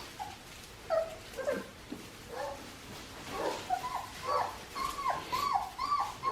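A litter of 4.5-week-old Australian Shepherd puppies whimpering and yipping: short high calls that slide down in pitch, several puppies overlapping. The calls are scattered at first and come thick and fast from about halfway in.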